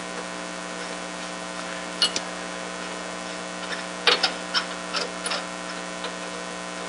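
Light metallic clicks and taps, a handful spread through, as a wire is fastened and tightened onto a capacitor's bolt terminal, over a steady electrical hum.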